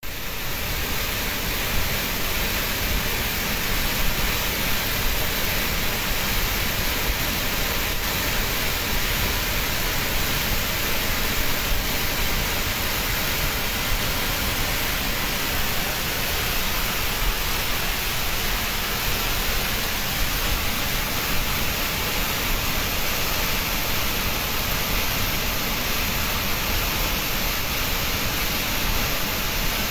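Water jetting out of a dam's opened sluice valve and crashing into the river below: a loud, steady rush of water.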